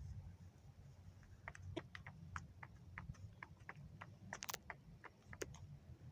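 Chickens pecking at feed: a faint, irregular scatter of sharp taps and clicks.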